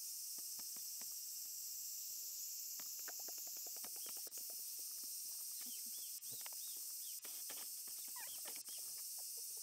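Outdoor ambience of small birds chirping in short high calls over a steady high hiss, with light rustling and ticking from a Shiba Inu puppy stepping through dry grass. The ticks come thickest about three to four seconds in, and the chirps cluster near the end.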